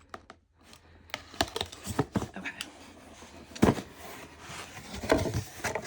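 A package being opened and unpacked by hand: paper and packaging rustling, with scattered clicks and one sharper knock about three and a half seconds in.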